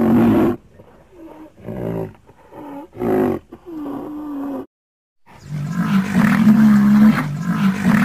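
Made-up woolly rhinoceros vocalizations, an extinct animal voiced as a sound effect: a run of short calls, several bending up and down in pitch. After a brief gap about five seconds in comes one long call held at a steady pitch.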